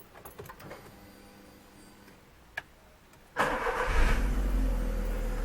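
A 1.6 8-valve EA111 flex engine in a 2007 Volkswagen SpaceFox is started by its freshly rebuilt starter motor. A short crank comes about three and a half seconds in, the engine catches at once, and it settles into a steady idle. The starter turns the engine over quickly and without struggle.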